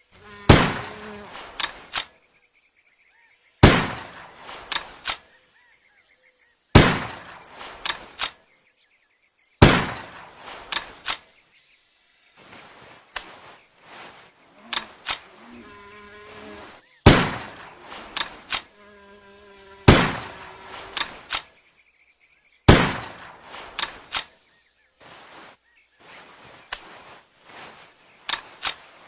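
Winchester Model 70 Extreme Weather SS bolt-action rifle firing seven shots, mostly about three seconds apart, each followed by a few metallic clicks of the bolt being worked. A longer spell of clicking and rattling comes in the middle.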